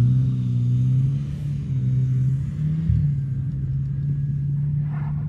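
A motor vehicle's engine running with a low, steady hum, its pitch briefly stepping up and back about three seconds in.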